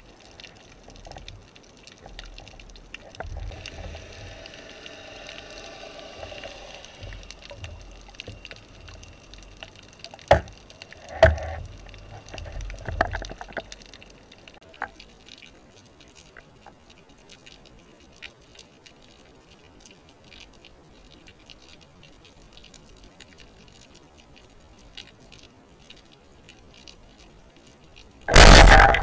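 Underwater background with scattered faint clicks and a few knocks, then near the end one loud, sharp burst lasting under a second: a band-powered wooden speargun firing underwater.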